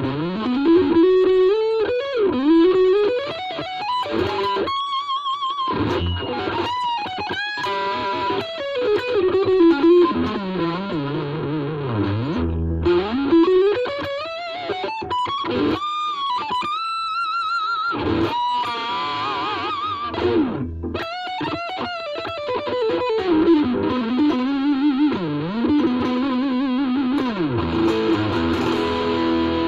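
Ibanez RG350DX electric guitar played through a Vox Soundbox Mini amp with effects and light distortion: single-note melodic lines that glide up and down in pitch, with wavy vibrato and short breaks between phrases.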